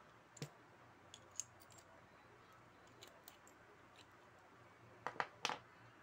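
Light metal clicks and taps from aluminium chain-tensioner parts and a small screw being handled and fitted by hand. Scattered single clicks come through, with a cluster of three louder knocks about five seconds in.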